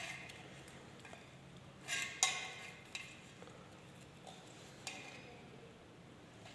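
Handling noise from fitting parts into a subwoofer: a few light clicks and rustles, the loudest a pair of clicks about two seconds in.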